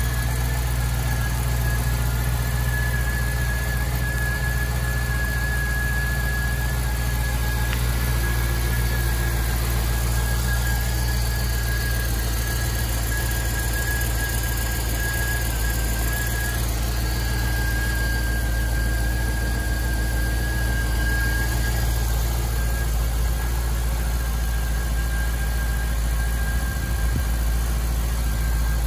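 A 317 kW LS3 6.2-litre V8 idling steadily, still cold from a cold start. A steady high-pitched whine runs along with the idle.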